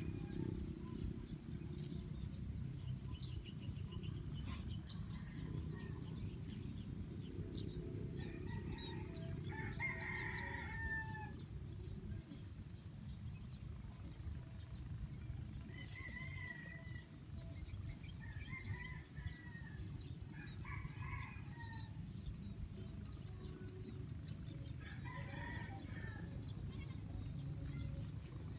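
Roosters crowing several times, the longest crow about ten seconds in, over a steady low rumble of wind on the microphone.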